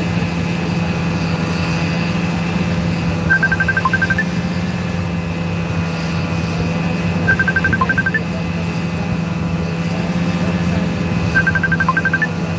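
Snowmobile engine running steadily on the move. Three times, about four seconds apart, a quick run of short electronic beeps ending on a higher note sounds over the engine.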